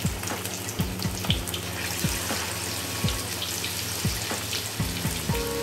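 Marinated chicken pieces deep-frying in hot oil in a kadai: a steady sizzle and bubbling, with soft low thuds about once a second. Music comes in near the end.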